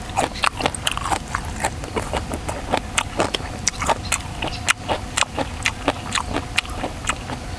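Close-up chewing of raw shrimp in spicy sauce: a steady run of irregular wet clicks and smacks, several a second.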